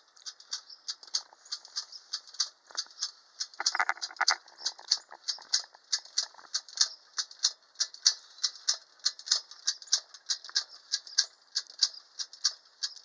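Antique wind-up toy's clockwork mechanism running, a rapid, even ticking with a brief louder clatter about four seconds in, as the wound spring drives the seesaw and swing.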